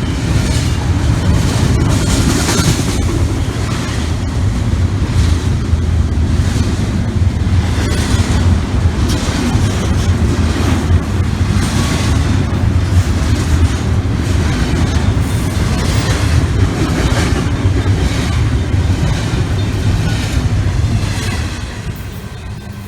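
A train passing close by: a steady low rumble with repeated clacks of wheels over the rail joints, dropping away about a second before the end.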